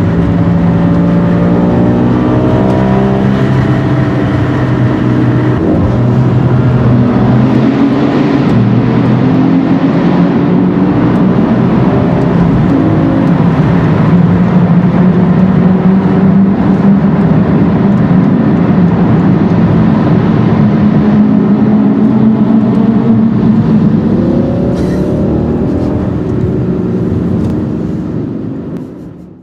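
Bugatti Veyron's quad-turbo W16, fitted with a Mansory exhaust, heard from inside a car following it at motorway speed. The engine note climbs in pitch in several pulls as it accelerates, and fades out near the end.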